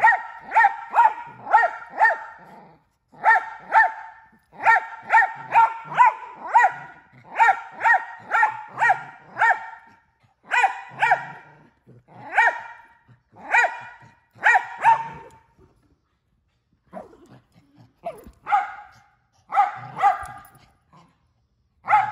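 Miniature Australian Shepherd play-barking over and over in fast runs of sharp, high barks, two or three a second. The barks pause briefly about two-thirds of the way through, then come more spaced out.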